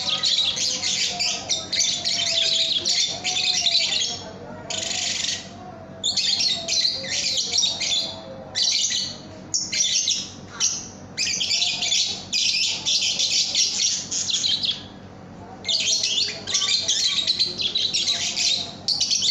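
Lovebirds chattering in rapid, high-pitched bursts of one to three seconds each, broken by short pauses, with a faint wavering lower tone underneath.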